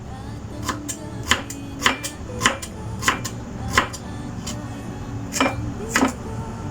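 Knife chopping on a cutting board in a steady rhythm, about one stroke every half second: six strokes, a pause, then two more near the end.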